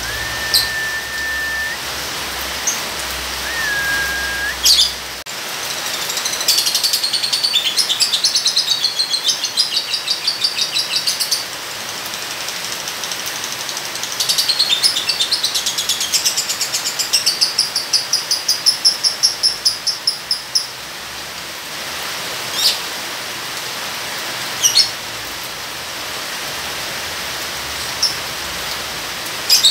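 Lovebird chattering in two long runs of rapid repeated high notes, each several seconds long, then a few short sharp chirps, over a steady hiss of rain.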